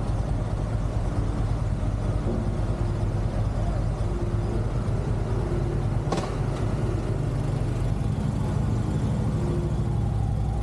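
A large engine running steadily with a low rumble. A single sharp click comes about six seconds in.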